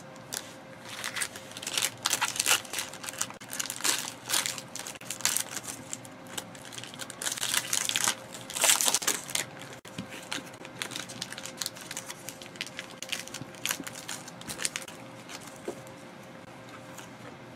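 Foil trading-card pack wrapper crinkling and crackling as it is handled and opened, in irregular bursts that are busiest in the first half and thin out toward the end.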